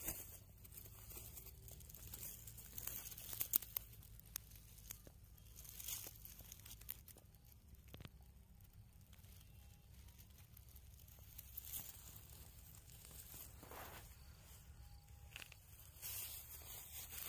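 Dry straw rustling and crackling in scattered short bursts as large rohu fish are shifted and turned over on it, with a few sharp clicks.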